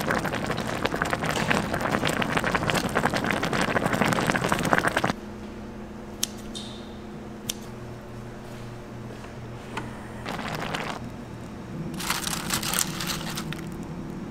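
Tteokbokki sauce boiling hard in a shallow metal pot, a dense crackling bubble for about five seconds, cutting off suddenly. It is followed by softer bubbling and a few sharp clicks of metal tongs against the pot, over a steady low hum.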